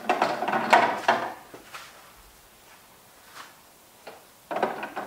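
Food and containers being handled and set back into a refrigerator: knocks and rubbing against the shelves and drawers in a burst over the first second and a half and again near the end, quiet in between.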